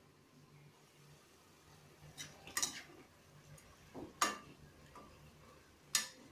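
A few sharp clinks and knocks of cookware: a stainless-steel pan lid being lifted off, and a slotted spatula knocking against the pan while stirring chicken pieces. The knocks fall in small groups about two and a half, four and six seconds in, the one near four seconds the loudest.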